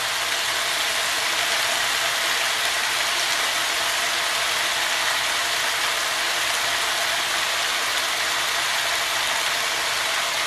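Italian seasoning grinder twisted steadily over a pot of sautéing vegetables, its grinding crackle over the sizzle of the vegetables.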